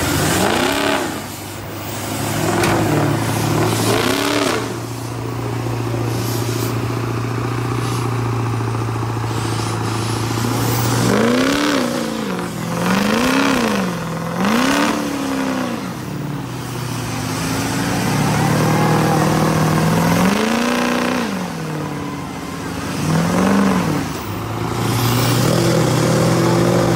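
Big-tired mega mud truck engines pulling under load in a tug of war, revving in repeated rising-and-falling surges (three quick ones about halfway through, more near the end) over a steady lower engine drone, with the rush and clatter of spinning tires slinging mud.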